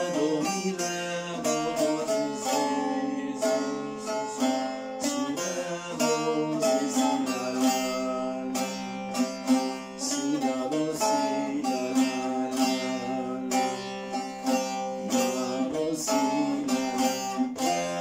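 Short-neck bağlama (kısa sap) playing a Turkish folk-song melody in rapid picked strokes, with steady low notes ringing under the tune.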